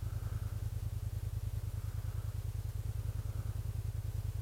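Kymco AK550 maxi-scooter's parallel-twin engine idling steadily while stopped, an even low hum with a rapid regular pulse.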